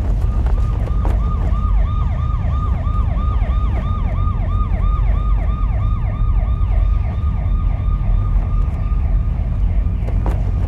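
A siren in quick yelp mode, its pitch falling in short sweeps about four times a second, over a steady low rumble of city traffic. The siren fades out near the end.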